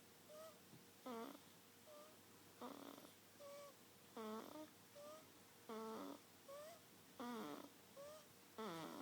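Faint, rhythmic snoring, about one breath every one and a half seconds. Each breath has a tone sliding down in pitch, followed by a short, thin rising squeak.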